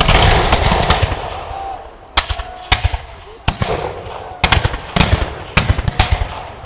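Black-powder muskets firing: a heavy volley at the start that rings on for a second or so, then about ten scattered single shots at irregular intervals.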